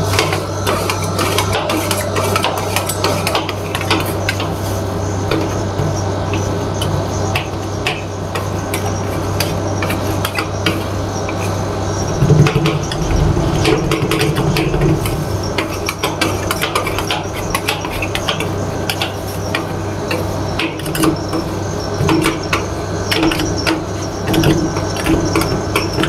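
Steel spatulas chopping and scraping ice cream mix on a frozen steel cold plate for rolled ice cream: rapid, irregular clacks and scrapes of metal on metal. A steady low hum runs under the first half.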